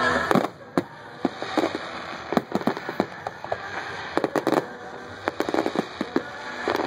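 Aerial fireworks going off: an irregular run of sharp bangs and pops from bursting shells. The pops come faster and thicker in the second half.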